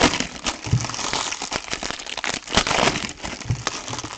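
Trading card packaging crinkling and rustling as it is handled, with irregular small clicks and crackles.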